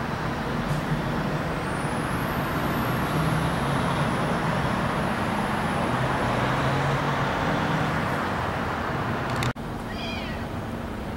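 Steady distant background rumble with a low hum and a faint high whine drifting in pitch. It breaks off abruptly near the end and is followed by a brief high-pitched call.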